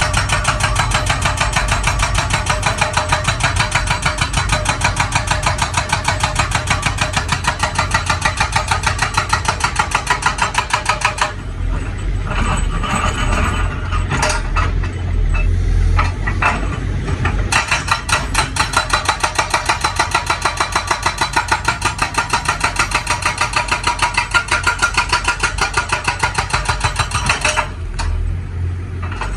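Excavator-mounted hydraulic rock breaker hammering hard rock in rapid, even blows. It stops for several seconds about a third of the way in, leaving the excavator's engine running, then hammers again and stops shortly before the end.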